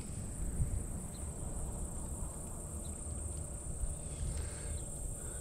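Insect chorus: a steady, high-pitched trilling that does not change, over a low rumble of wind on the microphone.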